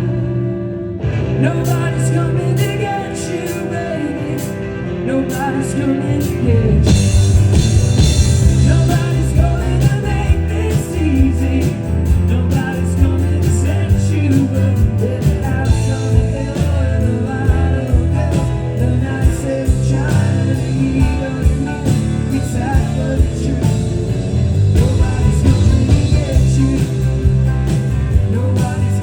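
A live band playing a rock song with a singer. The band gets louder and fuller about seven seconds in, with cymbals coming in.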